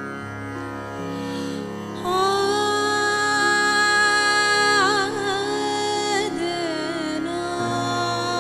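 A woman singing a Marathi devotional song over a steady drone and instrumental accompaniment. From about two seconds in she holds a long note, which wavers in ornamented turns around the middle.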